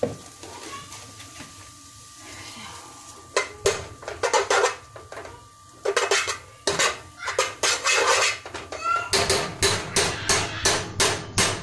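A utensil knocking and scraping against a pot while stirring diced onion and butter. The strokes start about three seconds in and come in quick clusters, faster toward the end.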